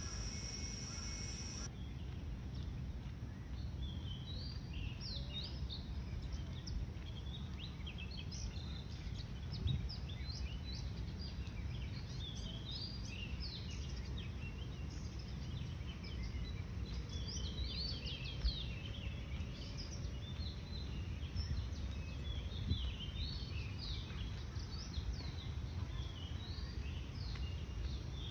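Many birds chirping with short, quick calls over a steady low rumble. A steady high-pitched tone cuts off about two seconds in.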